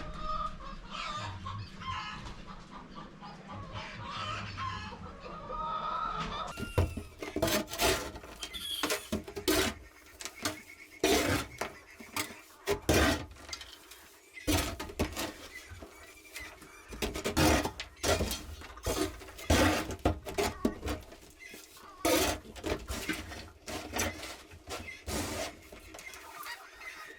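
Chickens clucking, then from about six and a half seconds in a run of irregular sharp knocks and scrapes.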